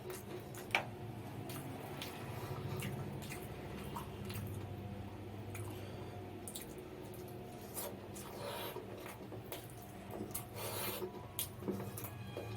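Close-up eating sounds of someone eating mutton biryani: wet chewing with many short mouth clicks and smacks, over a steady low hum.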